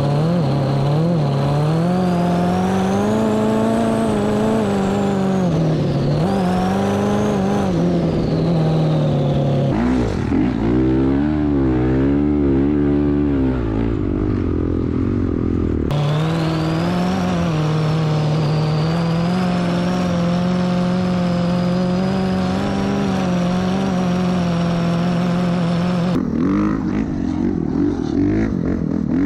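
Honda CRF450R dirt bike's single-cylinder four-stroke engine at high revs under load, the pitch climbing and falling as the throttle is worked. The note jumps abruptly a few times, with a stretch of fast-wavering revs near the middle.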